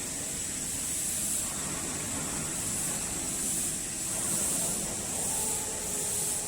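Steady factory background noise: an even hiss with a high-pitched band that swells and fades, and faint steady hum tones coming in about five seconds in.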